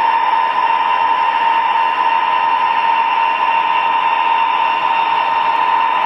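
O gauge model diesel locomotives running along three-rail track, their electric motors and gearing giving a loud, steady whine over a constant running noise.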